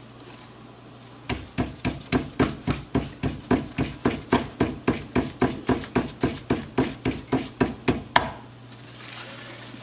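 Hands patting a piece of nixtamalized blue-corn masa between the palms: an even run of sharp slaps, about three or four a second, starting about a second in and stopping near the end on one harder slap.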